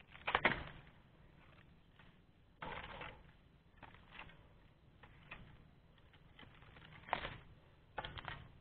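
Chisel blade of a dodos harvesting pole jabbed into the stalks at the base of a young oil palm's fruit bunch and fronds. There are about five short crunching cuts and scrapes, spaced irregularly a second or more apart, as a wedged bunch is worked free.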